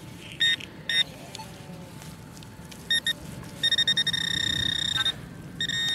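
Metal detector giving a high-pitched electronic tone over the dug soil: short beeps about half a second and one second in and another near three seconds, then a steady tone lasting about a second and a half, then two quick beeps near the end. The tone signals a metal target in the loosened soil.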